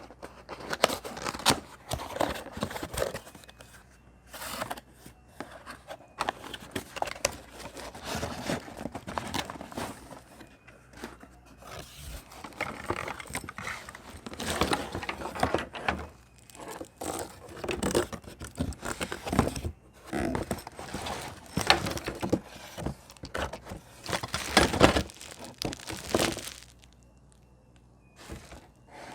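Packaging being unwrapped by hand: irregular crinkling and tearing with scattered small knocks and scrapes, easing off near the end.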